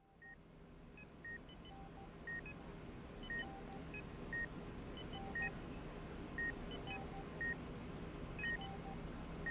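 Hospital patient monitor beeping steadily, about once a second, with a few softer beeps at higher and lower pitches between the main ones, over a low steady hum that fades in at the start.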